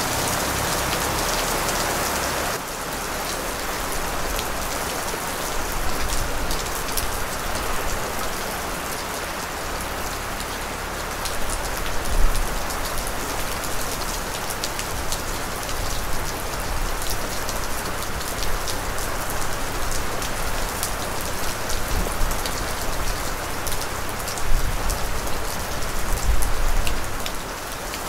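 Steady rain falling on a surface, an even hiss with individual drops ticking through it. A few brief low thumps rise out of it about halfway through and again near the end.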